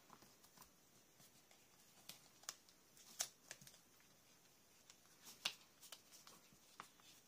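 Faint paper handling: scattered light ticks and rustles as a small paper piece is tucked under layered cardstock and pressed into place, with a few sharper taps.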